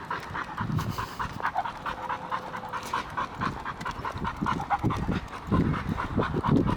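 Pit bull panting in quick, even breaths.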